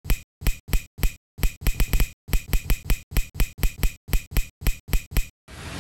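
Intro sound effects: a quick, uneven run of short snapping clicks, about four a second, one for each word popping onto the screen. Just before the end a whoosh begins to swell.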